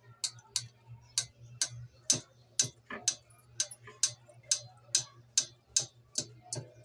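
A steady, even run of sharp ticks, a little over two a second, over a low steady hum.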